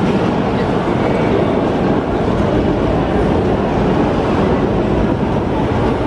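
Steady city street ambience in the rain: an even, loud rumble of traffic on wet roads mixed with the wash of rain, with no single event standing out.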